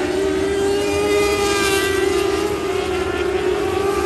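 Lightning sprint car's 600cc motorcycle engine running at high revs on a dirt oval, a steady high-pitched engine note that wavers slightly up and down.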